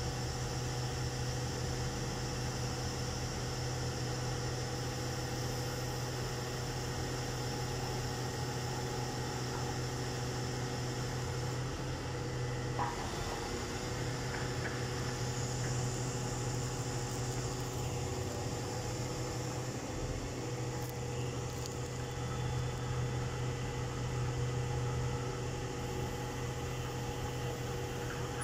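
Mobile truck cranes' diesel engines running steadily while hoisting a steel beam: a constant hum, with one short knock about halfway through.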